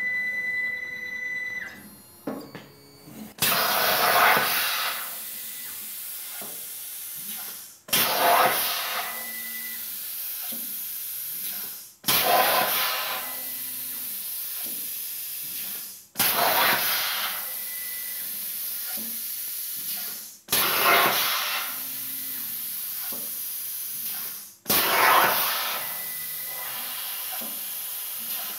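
Hypertherm Powermax 30 XP plasma cutter on a CNC table cutting sheet steel: about six cuts in a row, each starting with a loud burst and settling into a steady hiss for about four seconds before cutting off. A short beep sounds at the very start.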